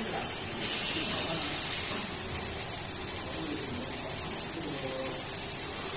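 Steady, constant hiss of factory machinery noise, with no distinct strokes or rhythm, and faint voices in the background.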